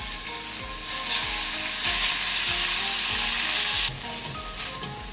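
Pieces of goat meat sizzling in a hot, lightly oiled iron wok while a silicone spatula stirs them. The sizzle grows louder about two seconds in and falls back about a second before the end.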